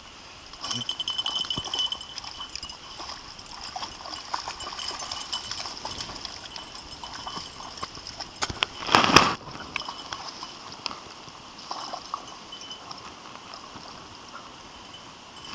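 Leashed dogs wading and moving through shallow pond water and dry reeds, with scattered splashing and crackling. A short, louder noise comes about nine seconds in.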